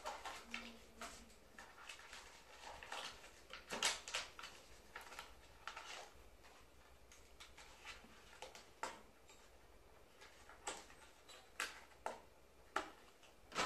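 Plastic blister packaging being handled and pried apart to free a wireless neckband earphone: a string of irregular short crackles and clicks, a few louder snaps among them.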